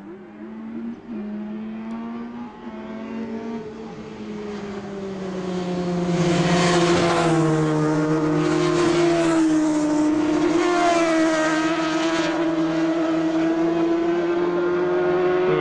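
Several superbike racing motorcycle engines at high revs, their pitch rising and falling as the bikes corner and accelerate. They are fainter for the first few seconds and grow loud about five seconds in as bikes pass close.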